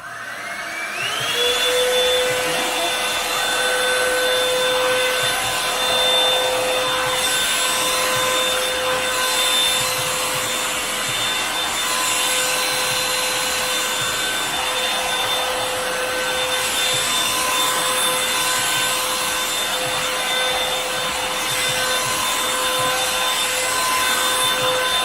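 Revlon One-Step hair dryer brush switched on: its motor spins up, rising in pitch over about a second and a half, then runs steadily with a whine over the rush of blown air.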